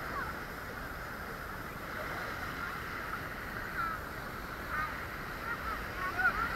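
Shallow beach water sloshing in a light breeze, with faint short high cries in the background, a few of them louder near the end.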